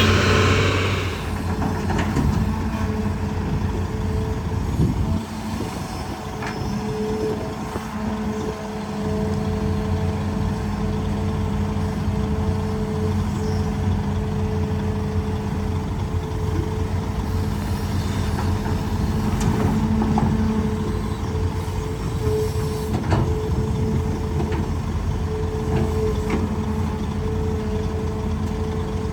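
Hitachi ZAXIS200 hydraulic excavator's diesel engine running steadily under working load, with a held whine from the hydraulics and a few scattered knocks as it works rock. The engine eases briefly about five seconds in, then comes back up.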